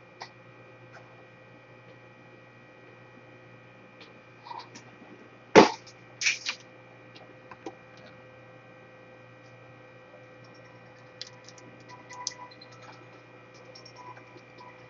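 Steady electrical mains hum with scattered clicks and knocks of handling on a workbench; the loudest is a sharp knock about five and a half seconds in, followed by two more clicks.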